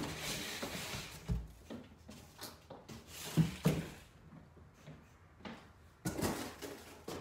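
Cardboard of a large speaker shipping box being handled and pulled open: rustling and scraping with a few dull knocks, the loudest two close together about three and a half seconds in.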